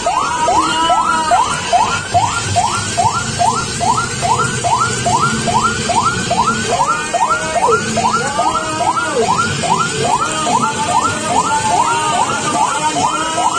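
Siren in a fast yelp pattern, its pitch sweeping up again and again, about three times a second.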